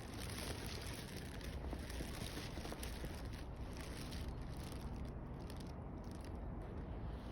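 Wind buffeting the microphone: a steady low rumbling hiss with faint crackles, and no bird call to be heard.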